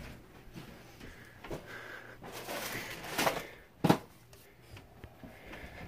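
Household objects being handled and moved while rummaging: scattered light knocks and rustling, with one sharper knock about four seconds in.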